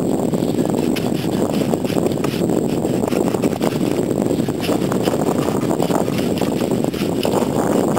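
Hand pruning saw cutting through pollard willow branches, its strokes a quick irregular rasp over a steady low rumble.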